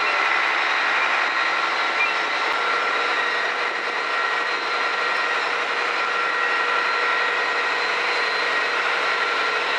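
Fire-service vehicles and equipment running at a fire: a steady engine drone with several constant high whining tones over it.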